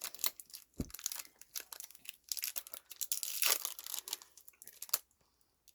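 Plastic snack wrapper being crinkled and torn open in quick dense crackles, with one soft low thump about a second in; the crackling stops near the end.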